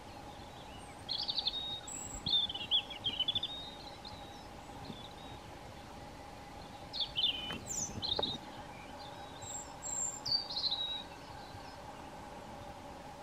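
European robin singing: three short phrases of high, quick twittering and warbling notes, about a second in, around seven seconds in and near ten seconds, over a faint steady hum of background noise.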